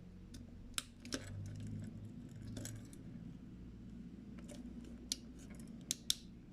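Small, sharp clicks and faint scraping of plastic on metal as a blade levers the plastic scale off a Victorinox Swiss Army knife, with about half a dozen separate clicks spread through it.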